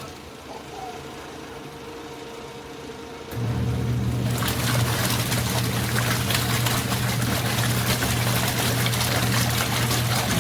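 Motor of a compact twin-tub washing machine starting about three seconds in and humming steadily, with water running through the machine.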